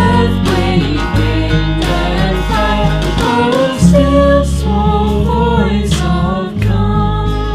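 Worship music: a sung melody over acoustic guitar with sustained bass notes underneath.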